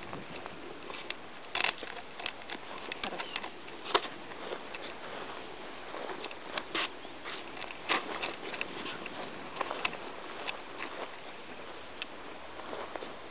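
Rustling and swishing of tall grass as people and a dog walk through it, with many irregular crackles and clicks.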